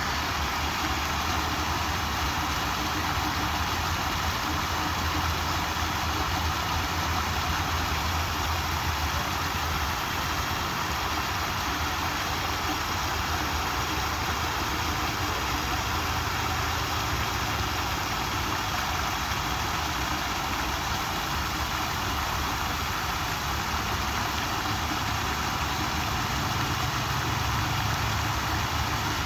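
Water fountain splashing steadily: a continuous rush of falling water with a low rumble underneath.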